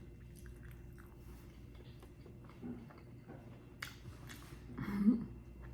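A person chewing food close to the microphone, with small wet clicks and a couple of sharper crunches about four seconds in, and a short hum of the voice near the end.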